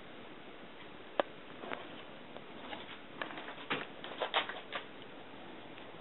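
Light scattered clicks and taps: one sharp click about a second in, then a cluster of quick taps between about three and five seconds in.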